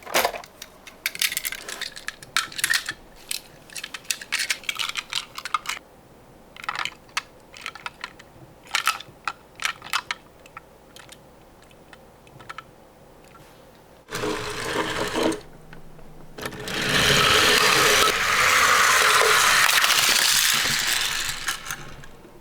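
Die-cast toy cars clinking and clicking against each other and the wood as they are set out, then rolling down a wooden ramp: a short run, then a longer, loud rolling rattle of several seconds near the end.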